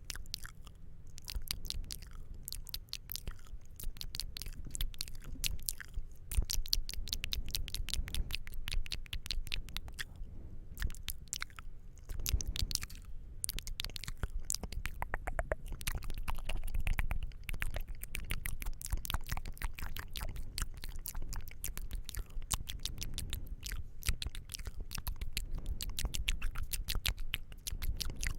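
ASMR mouth sounds close to the microphone: a dense, continuous run of wet clicks and smacks from the lips and tongue, with a couple of brief lulls.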